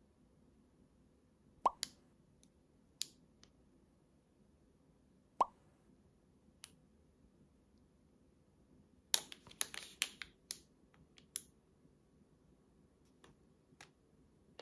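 Small plastic bead packets being handled: two short plops with a quick falling pitch, then a brief cluster of plastic crinkles and clicks a little past the middle, and a few faint ticks near the end.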